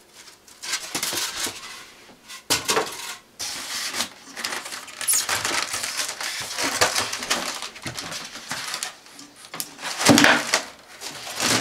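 Styrofoam packing blocks scraping and rubbing against a metal generator case as they are pulled off, with irregular handling noise and a few sharp knocks.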